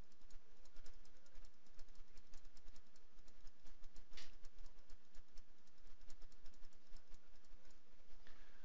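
Computer mouse clicked rapidly and steadily, several clicks a second, as stitch points are placed one by one in embroidery digitizing software, with one louder click a little after four seconds. A low steady hum lies underneath.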